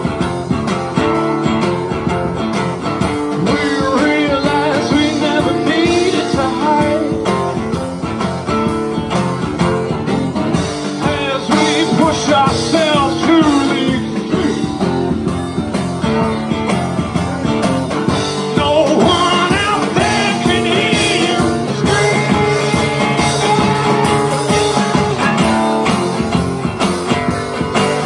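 Live rock band music: a strummed acoustic guitar with a drum kit, played through a small-venue PA.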